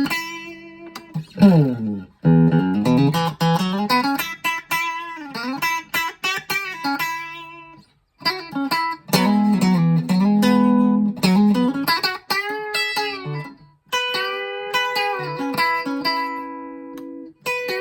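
Schecter OL-PT-TH thinline electric guitar played through a VOX Mini5 practice amp: single-note phrases and chords with string bends, vibrato and a slide down about one and a half seconds in. The playing breaks off briefly twice, at about eight and fourteen seconds.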